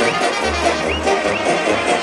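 Loud, fast Serbian brass-band music with a steady driving beat and pulsing bass.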